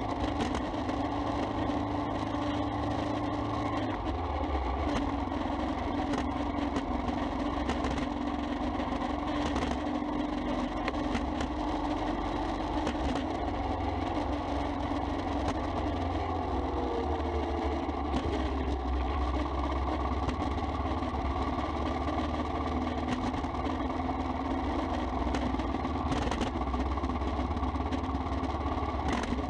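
Royal Enfield Himalayan's single-cylinder engine running steadily on the move, with road and wind noise, heard from a camera mounted on the bike.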